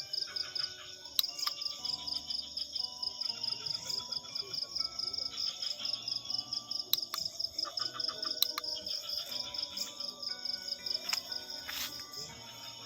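A night chorus of crickets trilling in a steady, rapidly pulsing chirp, with other insects chirping in short runs of fast pulses over it and a few sharp clicks.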